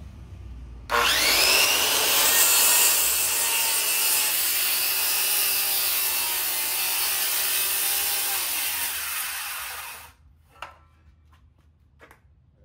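Corded DeWalt circular saw starts with a rising whine about a second in, then cuts into a 6x6 wooden post, running steadily under load. It stops abruptly at about ten seconds, followed by a few light knocks.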